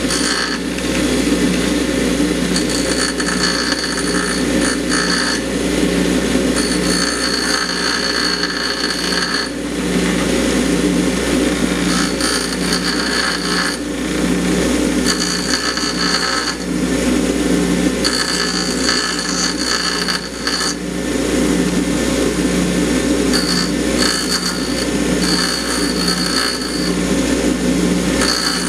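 Bench grinder with an induction motor running steadily, while a stock GM fuel injector's metal tip is pressed to the grinding wheel in repeated passes of a second or two, each adding a high-pitched grinding hiss. The friction weld around the injector's pintle cap is being ground off.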